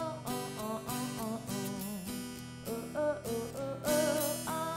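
Background pop song led by strummed acoustic guitar, with a wavering melody line over held chords.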